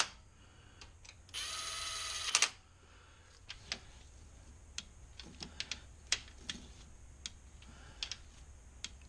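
Cordless ratchet runs a timing-chain guide bolt in with a steady motor whine for about a second, ending in a few clicks as it snugs down. Scattered light metal clicks and taps follow.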